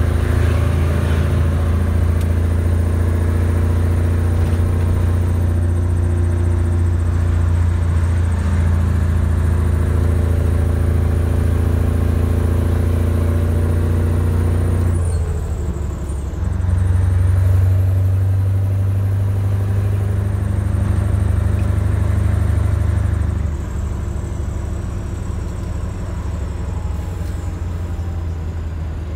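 Scania V8 truck engine with an open, straight-through exhaust pipe, heard from inside the cab while driving: a deep, steady engine note. About halfway through it dips briefly, then pulls up again and holds for several seconds before easing off for the last few seconds.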